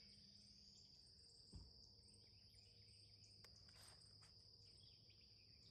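Near silence with the faint, steady high trill of crickets, and one soft thump about a second and a half in.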